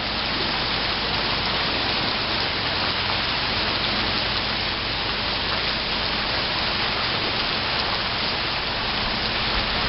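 Rain falling hard and steadily, an even hiss that does not let up.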